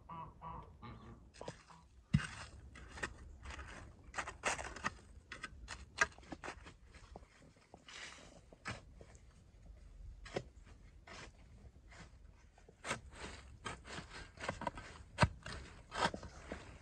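A steel shovel digging into soil: repeated, irregular strikes of the blade into the ground with scraping and crunching of earth. The sharpest strike comes about two seconds in.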